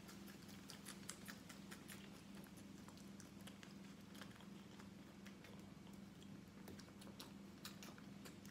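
Young goat suckling from a plastic feeding bottle's rubber teat: a faint, irregular stream of small sucking and smacking clicks, over a steady low hum.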